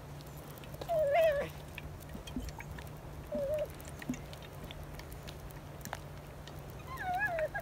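Small dog whining in short, high, wavering cries, three times (about a second in, mid-way, and near the end), excited and eager to go after deer it has spotted. A faint steady low hum runs underneath.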